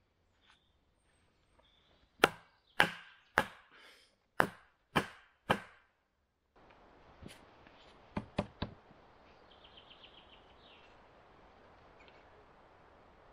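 Wooden mallet striking the top of a wooden post to drive it into the ground: six sharp knocks about half a second apart. A few seconds later come three quicker, lighter wooden knocks.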